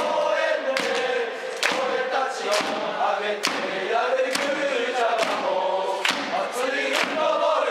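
A group of football supporters singing a team chant in unison, with a sharp hand clap on the beat about once a second.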